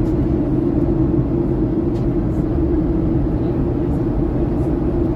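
Steady drone of a passenger airliner's engines and airflow heard inside the cabin during the descent to land, with a constant humming tone over the rushing noise.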